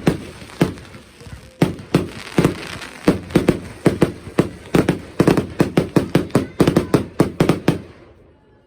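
Fireworks bursting overhead: a string of sharp bangs and cracks that comes faster from about three seconds in and then stops shortly before the end.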